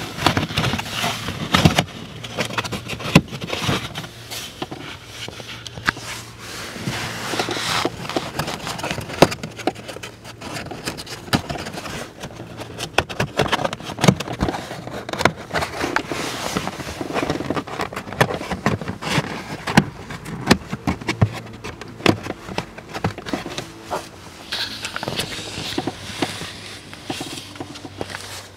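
A felt-lined plastic under-dash trim panel being worked back into place by hand: irregular scraping, rustling and clicks of plastic against plastic and carpet.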